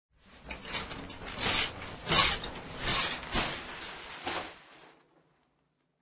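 Shower curtain drawn along its rod, the rings scraping on the rail and the fabric rustling, in a run of about six louder swishes that dies away about five seconds in.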